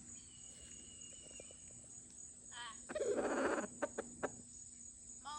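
Rooster giving one short food-call cluck to his hens, followed at once by a loud rustling burst and three sharp taps as he pecks at a tortilla.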